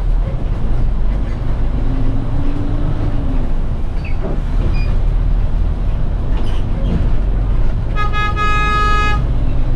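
City bus engine running with a steady low rumble. About eight seconds in, a vehicle horn toots once for just over a second.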